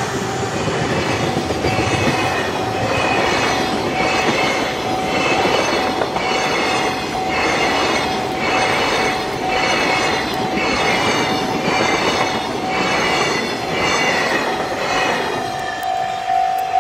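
Freight train of loaded container wagons rolling past, its wheels clattering over the rail joints in a regular beat of roughly once a second. The clatter fades as the last wagon passes near the end, leaving a thin steady tone that turns louder and pulsed.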